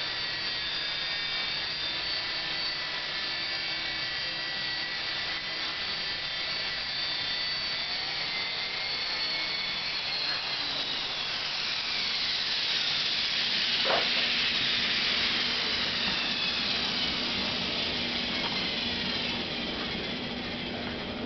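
Electric RC helicopter (Belt CP V2 with a CopterX rotor head) running with a steady high motor and gear whine while hovering. In the second half it sets down and the rotor spools down, the whine gliding lower in pitch as the blades slow.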